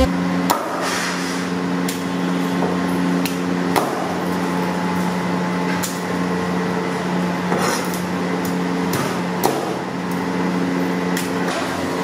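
Meat cleaver chopping frozen fish into chunks: sharp, irregular chops about once a second over a steady low hum.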